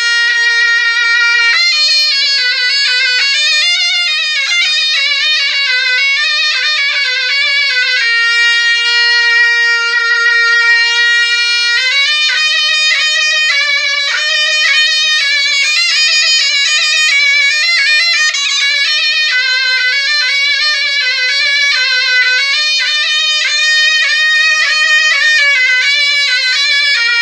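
Solo zurna, the Turkish double-reed shawm, playing a melody. It opens on a long held note, winds through an ornamented phrase, holds another long note from about eight seconds in, then plays a busier, heavily ornamented line from about twelve seconds.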